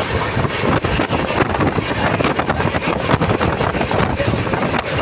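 Moving passenger train heard from inside the coach: a steady running rumble with irregular rattling, and wind buffeting the microphone.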